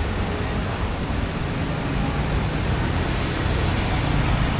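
Steady outdoor background rumble, low-pitched and even, of the kind road traffic makes.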